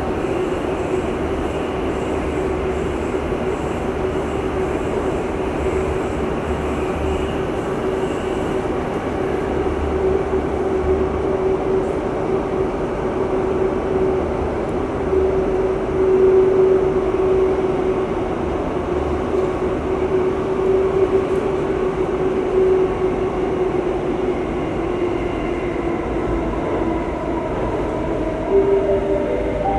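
Interior running noise of a Singapore Downtown Line MRT train in motion: a steady rumble with a constant whine. Near the end, several whining tones shift in pitch.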